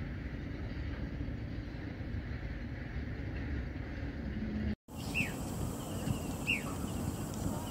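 A steady low outdoor rumble, broken by a brief dropout about five seconds in. After it, a bird gives two short chirps that slide downward, over continuing low background noise.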